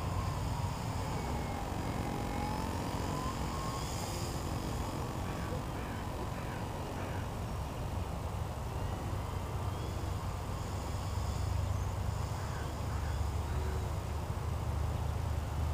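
Small electric RC plane's motor and propeller whining faintly in flight, its pitch drifting slowly down and up, over a steady low rumble. A few faint bird calls come in briefly twice.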